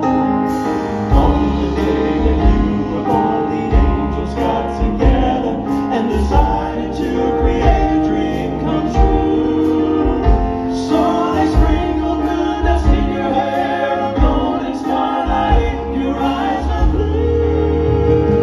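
Male gospel vocal quartet singing in close harmony, with piano and band accompaniment keeping a steady beat. A long chord is held near the end.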